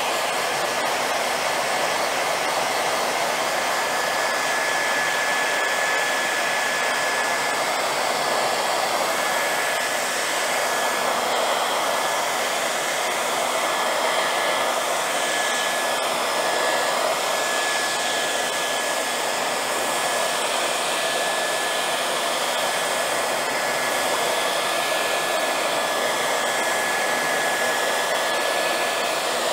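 High-wattage handheld hair dryer blowing steadily, held close over wet paint to dry it: an even rush of air with a thin, steady whine from the motor.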